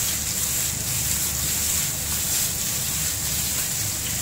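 Sliced mushrooms sizzling in hot oil in a frying pan, under a steady low rumble.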